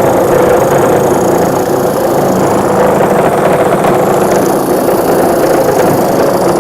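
Cordless Bosch 18V brushless reciprocating saw sawing through a 4x4 timber with an aggressive wood blade, set to its second orbital-action position. The cutting noise is loud and steady.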